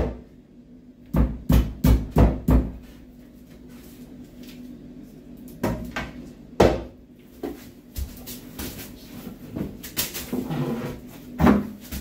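Sharp plastic knocks and clacks of a toilet seat and lid being handled and lowered onto a wall-hung ceramic pan: several in quick succession a second or two in, and a louder one past the middle. Near the end a heavier thump as a person sits down on the newly fixed pan.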